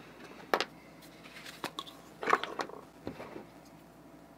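Small plastic clicks, taps and rattles from a plastic pill bottle, its snap caps and a syringe being handled on a wooden desk. There is a sharp click about half a second in and a quick cluster of clicks just past the middle.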